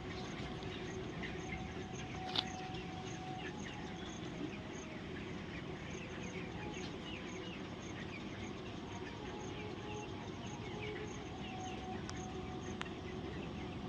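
A flock of chickens in a poultry shed keeping up a steady din of many short chirps and sneeze-like snicks, the 'chhi chhi' sound of birds with a cold. A single sharp click comes about two seconds in.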